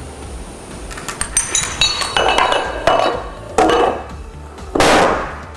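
A chain of 13 dominoes, each 1.5 times larger than the last, toppling in turn: small clinking clicks grow into heavier knocks. The largest domino, over a meter tall and about 100 pounds, lands with a loud crash near the end.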